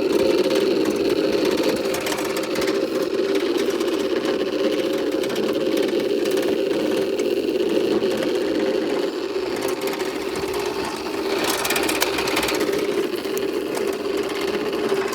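John Deere riding lawnmower's engine running steadily with the cutting blades engaged. A brief burst of hiss rises over it about eleven seconds in.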